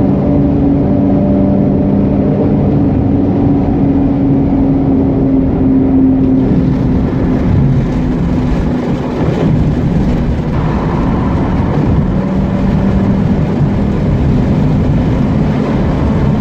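Mazda RX-8's twin-rotor Renesis rotary engine running under way, with steady engine tones at first and a broader, noisier sound from about six seconds in.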